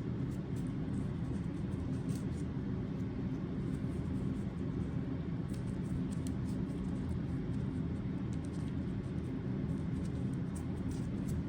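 A steady low hum with faint steady tones in it, over which come faint, scattered light ticks.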